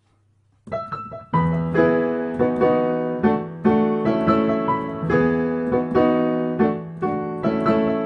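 Solo piano playing a J-pop song arrangement. After a short silence it starts with a few quick notes, then chords over a held bass note, struck again and again in a steady rhythm.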